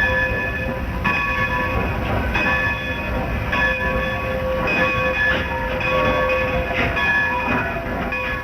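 Train running with a low rumble while its locomotive bell rings over it, struck about once a second.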